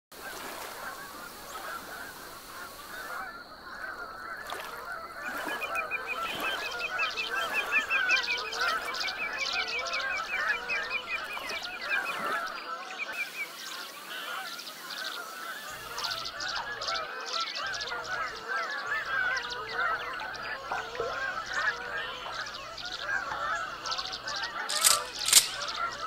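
A large flock of waterfowl calling: a dense chorus of many overlapping calls that goes on throughout. A fast, high, repeated trill from another bird runs through for several seconds in the first half.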